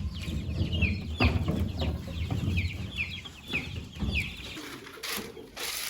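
Two-week-old chicks peeping over and over, many short falling cheeps. A low rumble underneath stops about four and a half seconds in.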